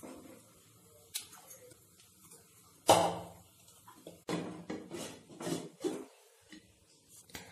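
Cookware knocks and scrapes: a steel bowl and a spatula clinking and scraping against a nonstick kadai as thick batter is poured in and spread. There is one loud knock about three seconds in, then a run of clinks and scrapes from about four to six seconds, and lighter clicks near the end as a glass lid goes on the pan.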